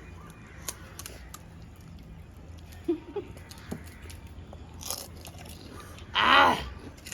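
Chewing and crunching of crisp panipuri shells, with scattered small clicks. Near the end comes one loud, short, harsh pitched call of about half a second.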